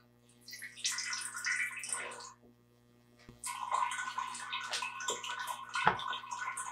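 Concentrated apple juice pouring out of a large plastic jug into a graduated cylinder, splashing and trickling in two spells with a short pause between. A single knock about six seconds in.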